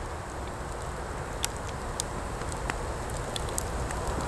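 Wood campfire burning, with a few sharp crackles and pops over a steady background hiss.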